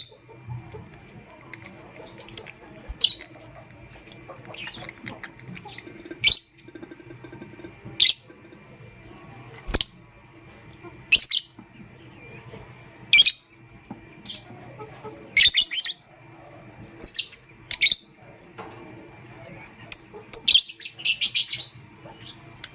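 Lovebirds chirping: short, sharp, high-pitched chirps every second or two, with a quick run of chirps near the end, over a faint steady hum.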